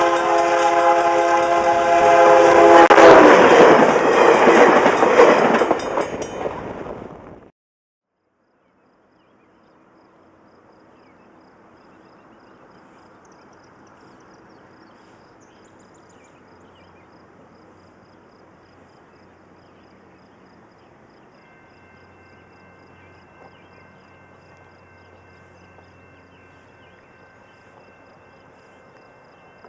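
VIA Rail passenger train sounding its locomotive horn in a long multi-note chord as it rushes past, cut off abruptly about seven seconds in. Faint outdoor ambience follows, with faint steady tones from about two-thirds of the way through.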